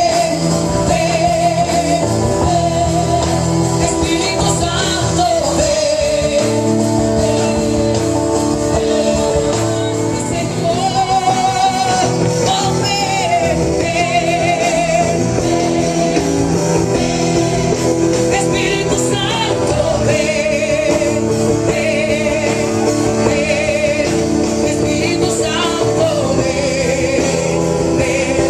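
Loud live evangelical praise music from a band with singers, electric guitar and drums, played through a large outdoor PA system.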